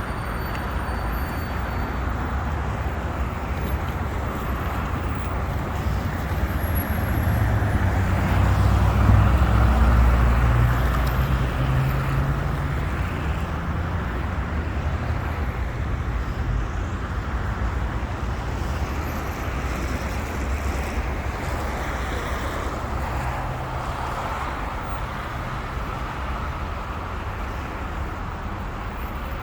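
City road traffic: a steady noise of passing cars, with a heavier, rumbling vehicle passing close and loudest about nine to eleven seconds in.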